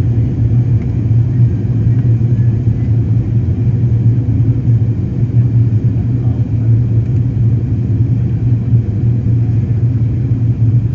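Steady low rumble inside the cabin of an Airbus A380 in flight: engine and airflow noise heard from the seat, even and unbroken.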